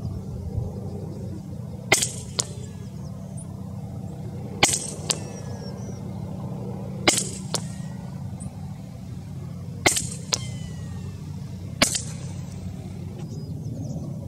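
Five shots from an Edgun Leshiy 2 .25 calibre PCP air rifle, spaced two to three seconds apart, each a sharp crack followed about half a second later by a fainter tick as the pellet strikes the target, over a steady low rumble.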